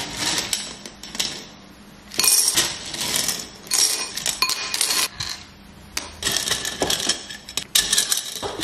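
Dry pasta pieces being picked by hand out of a glass jar and dropped into a ceramic bowl, rattling and clinking against the glass and china in several short bursts.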